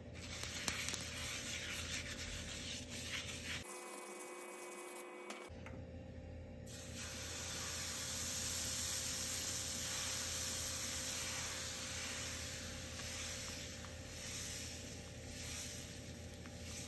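Oil being rubbed by hand over a cast-iron dosa pan, a rough scraping with small clicks. After a short break, dosa batter hisses on the hot pan as it is poured and spread in circles with a ladle. The hiss swells a few seconds after it starts, then settles.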